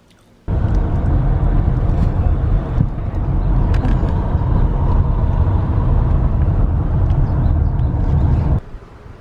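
Loud, steady rumble of a moving vehicle, cutting in abruptly about half a second in and cutting off just as abruptly near the end.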